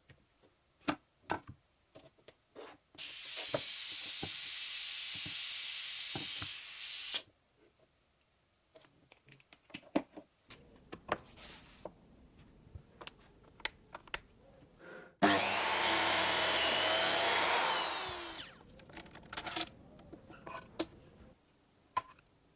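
Handling clicks as an air hose is pushed into a push-to-connect fitting, then a loud, even hiss of compressed air for about four seconds. Later a circular saw on a vertical panel saw cuts plywood for about three seconds, with its motor running more quietly before and after the cut.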